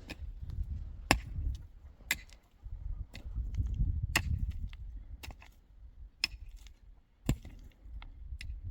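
Sharp blows of a tool striking wood, roughly one a second, over a low rumble.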